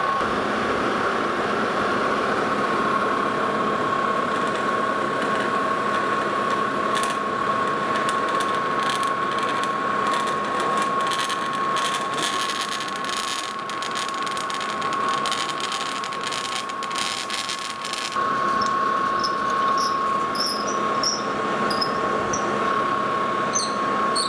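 Metal lathe drilling a round blank with a roughly 1-inch twist drill fed from the tailstock, its speed turned down a little. A steady high whine runs under the grinding noise of the cut, with scattered clicks and crackles of chips through the middle of it.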